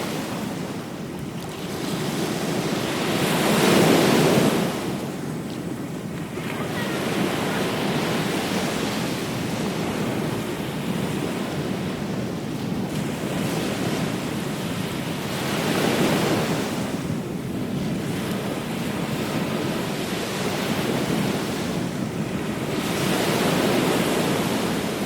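Ocean waves breaking and washing up on a beach, each wave rising to a louder rush about 4 s, 16 s and 23 s in, with wind buffeting the microphone.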